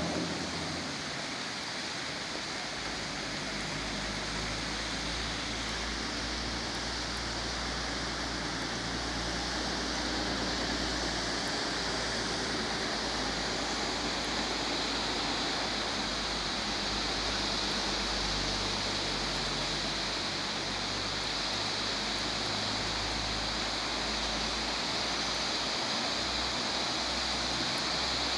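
Steady rushing of floodwater streaming across a street, with a low rumble underneath. The hiss grows a little louder near the end as a car pushes a wave through the water.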